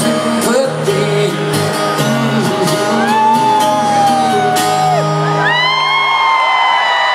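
Live rock band with electric guitar playing the closing bars of a song in a large hall. The low notes cut out about five and a half seconds in, leaving the crowd whooping and cheering.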